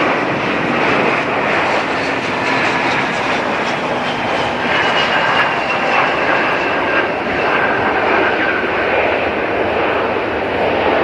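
Airliner engines running loudly and steadily as a plane passes, a wide rushing noise with faint whining tones that slide slowly down in pitch.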